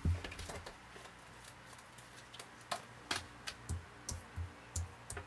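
Tarot cards being laid down and tapped onto a wooden tabletop by hand: a thud at the start, then a quick run of about six light taps and soft knocks in the second half.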